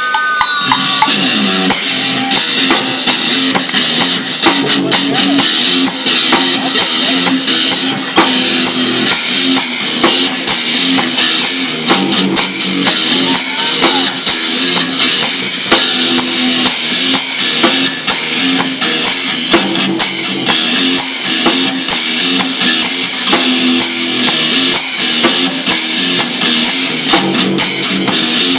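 Loud rock music: a drum kit beating a steady, even rhythm under guitars.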